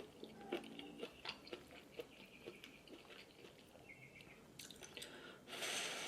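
Close-miked eating sounds: soft chewing with small wet mouth clicks and smacks of noodles being eaten. Near the end a steady hiss starts and holds for about a second and a half.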